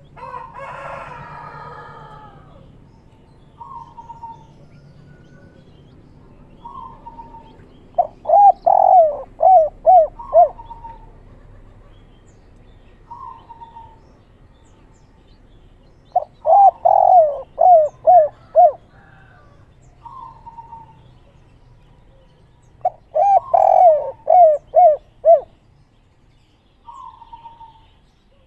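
Spotted dove cooing: three bouts of song, each a quick run of several coos, with softer single notes between the bouts.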